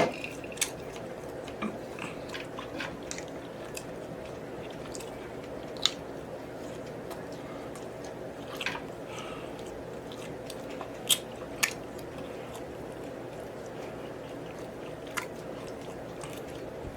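Close-miked chewing and mouth smacking while eating a meal of grilled steak and seafood, with a few sharp clicks scattered through over a steady low hum.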